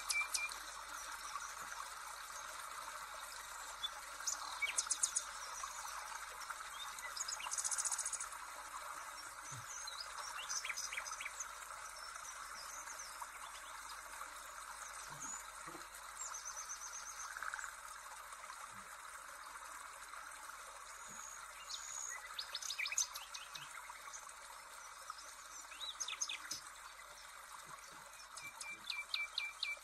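Birds chirping and trilling in short, scattered calls over a steady hiss.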